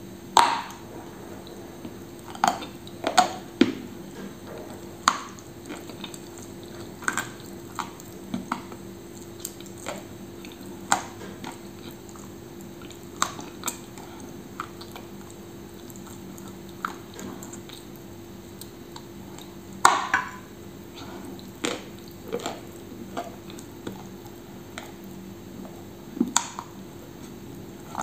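Eating sounds from a chocolate-glazed white snack bar: a louder crack of a bite near the start and another about twenty seconds in, with scattered wet chewing clicks and smacks between them, over a faint steady hum.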